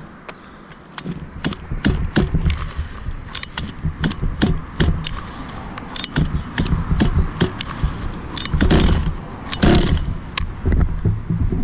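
Recoil pull-starter of an HPI Baja's ESP 30.5 cc two-stroke engine yanked over and over, rattling and clicking as the engine turns over without firing, because the car's ignition switch is still off. The loudest pulls come near the end.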